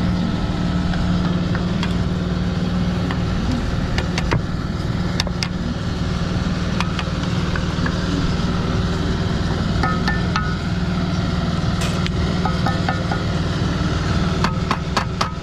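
An engine running steadily with a low, constant hum, mixed with scattered light clicks and taps and a quick run of clicks near the end.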